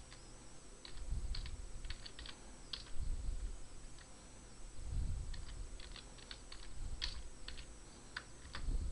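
Computer keyboard keys being typed in two short runs of clicks with a pause of about two seconds between them, entering a login command and then a password. Dull low thumps come every couple of seconds.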